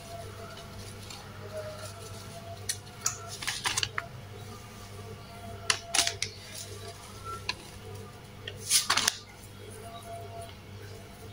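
Plastic seasoning sachet crinkling in several short crackly bursts as it is shaken to sprinkle spice powder over raw fish, over a steady low hum.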